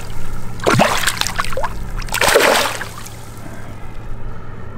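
Lake water splashing twice close to the boat, over a steady low hum.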